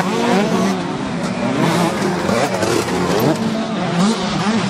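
Several 125cc two-stroke motocross bikes racing together. Their engine notes rise and fall and overlap as the riders open and close the throttle through the turns.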